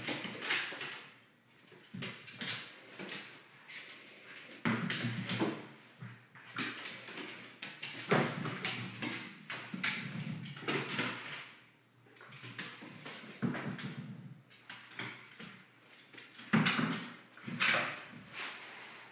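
A border terrier puppy scrambling about on a hardwood floor, his paws scuffling and tapping on the boards, while the tennis balls he pounces on and mouths knock, bounce and roll across the floor in irregular bursts of thuds.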